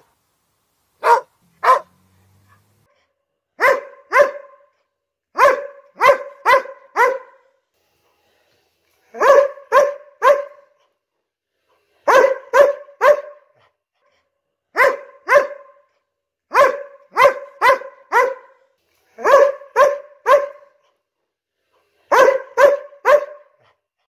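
Border collie barking in short runs of two to four sharp barks, with pauses of a second or two between runs.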